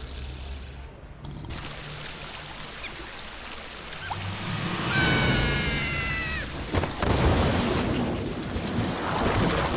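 Cartoon sound effects: a rush of noise that swells, a falling pitched squeal about halfway through, and a sharp hit just after.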